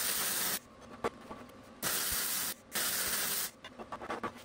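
Vulcan MigMax 215 MIG welder arc hissing and crackling in three short bursts, each under a second, as a weld pass is run on steel test pieces. A few faint clicks come near the end.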